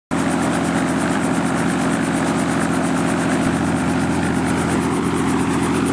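Light two-bladed helicopter running on the ground with its main rotor turning: a steady engine drone with the fast, even beat of the rotor blades.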